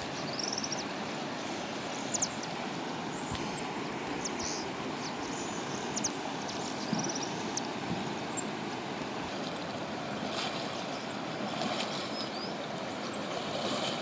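Steady rush of river water running over rocks in rapids.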